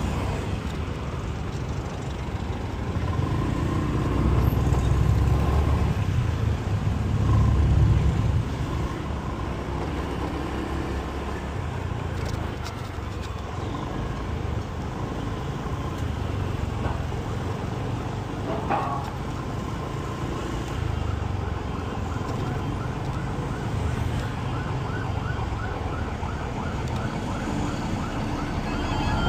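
Motorcycle engine running at low speed amid city street traffic, a continuous low rumble that is loudest about four to eight seconds in. A quickly repeating warbling tone sounds over the traffic in the last several seconds.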